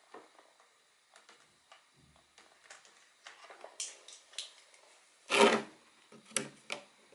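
A plastic barbecue lighter being taken apart with hand tools: scattered small clicks, scrapes and rubbing of plastic, with one louder scrape lasting under half a second about five and a half seconds in.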